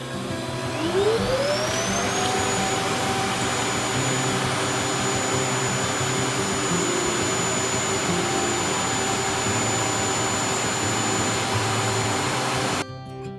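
Robot vacuum cleaner's suction motor spinning up with a rising whine, then running steadily with a loud airflow hiss, and cutting off abruptly near the end.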